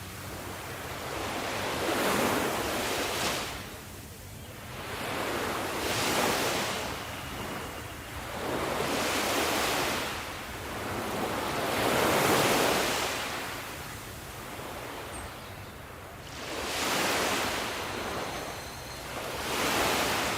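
Sea waves breaking and washing on the shore: a rushing surge that rises and falls about every three to four seconds, some six waves in a row.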